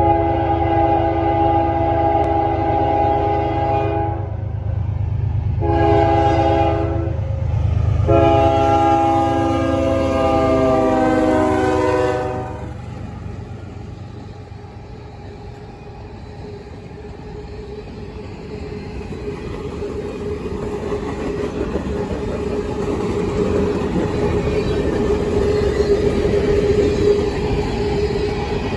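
A freight locomotive's air horn sounds for a grade crossing: the end of one blast, a short blast, then a long final blast that falls in pitch as the lead locomotive passes. The diesel locomotives then rumble by, followed by loaded grain hopper cars whose wheel noise builds on the rails, with a steady tone over it.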